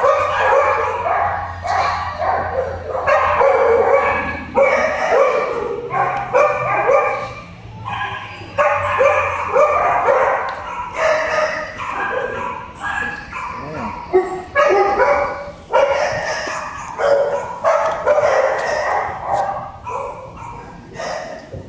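Dogs barking and yipping over and over in short bunches with brief pauses between.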